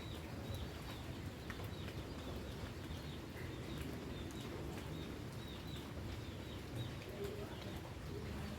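Rain falling steadily, with a few short bird chirps in the first second and a dove cooing low near the end.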